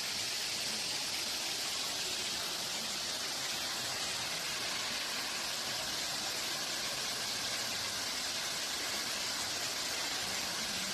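Steady rushing of a high waterfall, an even, unbroken hiss of falling water.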